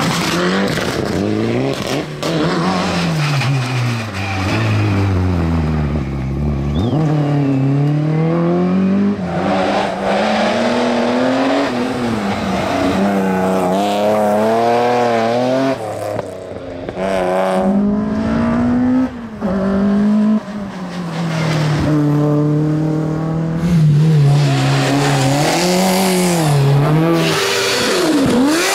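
Hillclimb race cars driven hard one after another, engines revving high. The pitch climbs and drops back again and again with each gear change.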